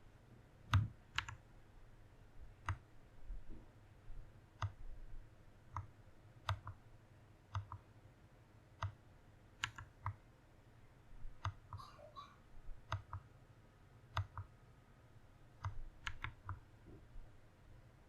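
Mechanical keyboard keys on a Press Play Orbiter67 pressed one at a time, about one keystroke a second, each a separate click, some heard as a quick double click of press and release.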